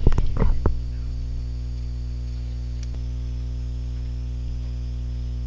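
Steady electrical mains hum in the recording: a constant low buzz with many evenly spaced overtones. A few brief voice-like sounds trail off in the first second.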